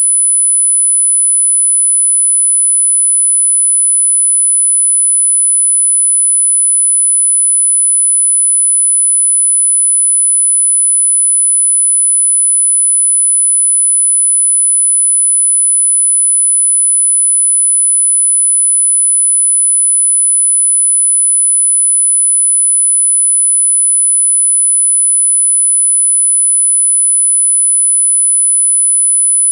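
A single steady, high-pitched pure sine tone at 10,000 Hz, held unchanged and loud. It is a synthesized anti-barking tone meant to startle a dog into stopping its barking.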